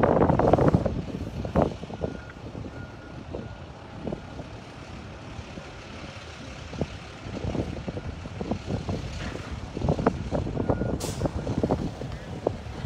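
Gusty wind buffeting the phone's microphone, strongest in the first second and again near the end, over the distant running of heavy machinery such as excavators. A few short, faint backup-alarm beeps sound in the middle and near the end.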